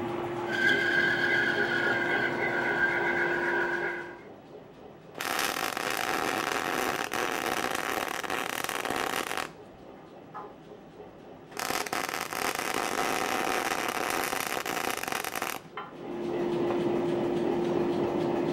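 Metal-cutting bandsaw running through W1 steel round bar under coolant, a steady hum with a high squeal from the blade in the cut. Then two bursts of MIG welding crackle, each about four seconds, with quieter pauses between. Near the end a forge runs with a steady hum.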